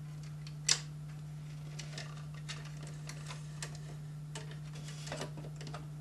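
Scattered light clicks and taps of plastic parts being handled against a metal computer case, with the sharpest click about a second in and a small cluster near the end. A steady low hum runs underneath.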